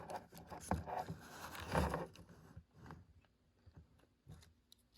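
Plastic packaging being handled: rustling and scraping with a few sharp clicks, busiest in the first two or three seconds, then only a few faint ticks.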